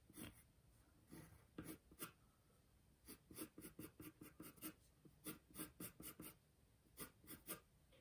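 Faint scratching of a graphite pencil on paper in short strokes that come in small clusters, with brief pauses between them.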